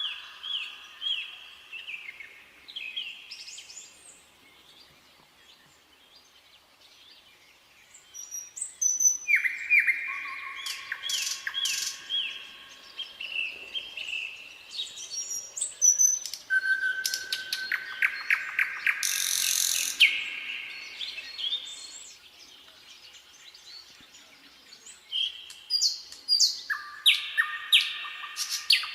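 Nightingale singing: phrases of rapidly repeated notes and trills, each several seconds long, with short pauses between. Phrases start about 9, 16 and 25 seconds in, with a quieter gap around 4 to 8 seconds in.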